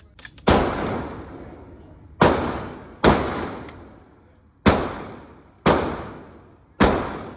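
Glock 34 9mm pistol firing six shots at an uneven pace, each crack followed by a long fading echo, with two faint clicks just before the first shot.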